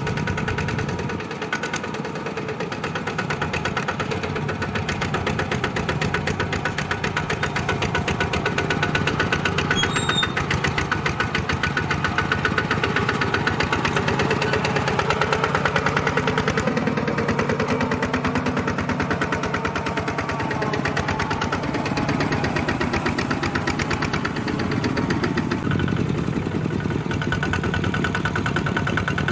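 Single-cylinder diesel engine of a two-wheel walking tractor pulling a loaded rice trailer, running steadily with a rapid, even pulse of firing strokes.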